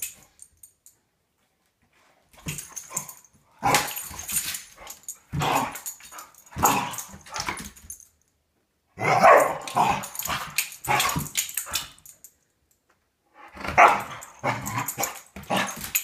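Dog growling and barking in rough play-fighting with a cat, in bursts of one to three seconds with short pauses between.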